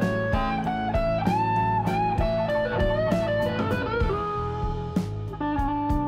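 Instrumental background music: a melody of held notes over a steady beat of about two strokes a second.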